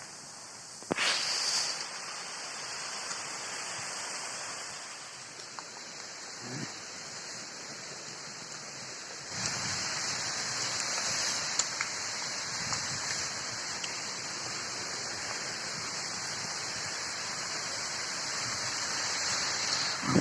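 Steady hissing noise that gets louder about nine seconds in, with a few faint clicks and ticks.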